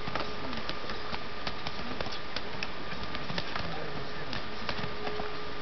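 Steady background hiss with a faint steady hum and scattered faint clicks; no single event stands out.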